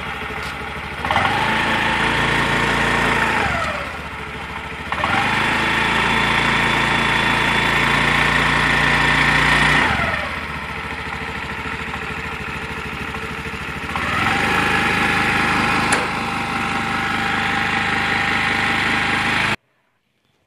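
Honda Activa 6G scooter's single-cylinder engine idling, then revved up and held high three times for a few seconds each, dropping back to idle in between. The sound cuts off suddenly near the end.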